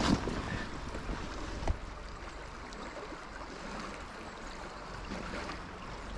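Steady rush of flowing river water, with one short click a little under two seconds in.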